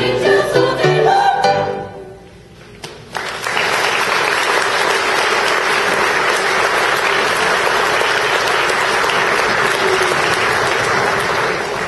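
A youth choir finishes singing about two seconds in; after a brief pause the audience applauds steadily for about eight seconds, fading near the end.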